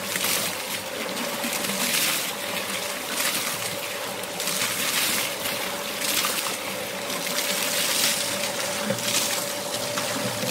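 Water gushing from a pipe into the plastic buckets of a homemade bucket-chain water wheel and splashing down into a creek, swelling in uneven surges. A faint steady hum runs underneath.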